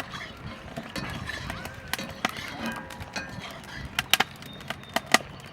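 Irregular sharp knocks and clicks, like hard objects striking one another, with a few louder strikes near the end.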